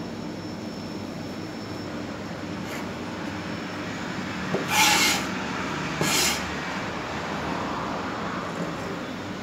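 Steady low hum of kitchen background noise, with two short scraping sounds about halfway through as a large kitchen knife is dragged across a plastic cutting board, pushing chopped tomato off the board.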